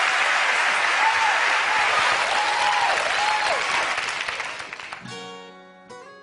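Studio audience applauding, the clapping fading out after about four seconds. An acoustic guitar then starts playing, picked notes ringing out just after five seconds in.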